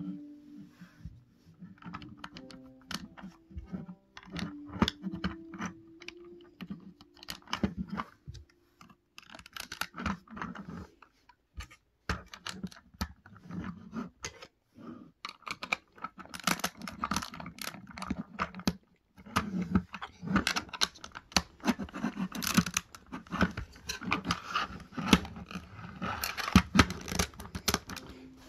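Plastic LEGO bricks clicking and rattling as a LEGO model is handled and turned over: a dense run of small irregular clicks and taps, busier in the second half.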